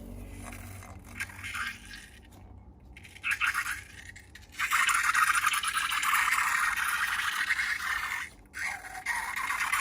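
Slime being scraped and worked by hand, a dense crackly scraping with a few short scrapes first; it becomes continuous about halfway through, breaks off briefly near the end and starts again.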